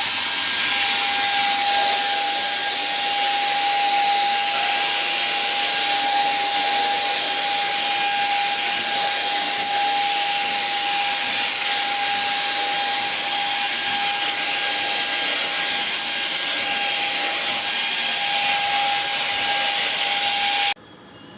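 Prestige Clean Home vacuum cleaner running steadily with a high-pitched whine, then switched off and stopping abruptly near the end.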